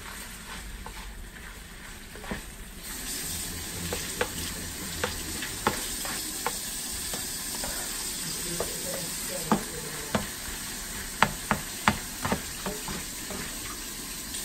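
Ground meat frying and sizzling in a nonstick skillet while it is stirred with a silicone spatula, which taps and scrapes against the pan many times. The sizzle grows louder about three seconds in, and the taps come thickest near the end.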